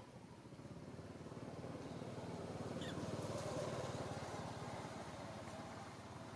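A vehicle engine passing by, its low pulsing running louder to a peak about halfway through and then fading. A brief high squeak sounds about three seconds in.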